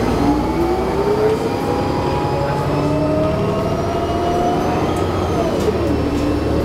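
Drivetrain of a 2011 New Flyer D40LFR bus (Cummins ISL9 diesel, Allison B400R automatic) heard from inside, under way. Its whine rises steadily as the bus picks up speed, drops sharply about five seconds in, and starts rising again, over a low engine and road rumble.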